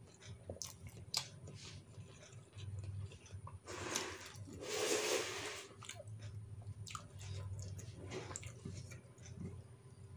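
A person chewing and biting food close to the microphone, with wet mouth smacks and small clicks. A louder breathy rush lasts about two seconds near the middle.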